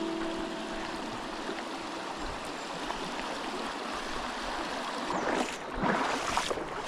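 Creek water rushing and gurgling steadily, with a few louder irregular splashing or rustling sounds between about five and six and a half seconds in.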